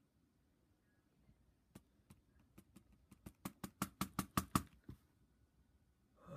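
A computer mouse button clicked over and over. The clicks start a couple of seconds in, then come faster and louder, about six a second, before stopping about five seconds in.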